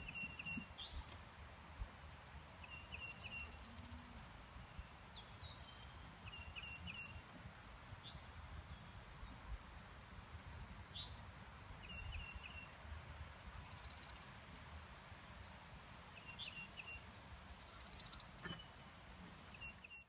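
Several songbirds singing in open country. Short trilled phrases repeat every three to four seconds, mixed with quick rising notes and a few buzzy high calls, over a steady low rumble of wind.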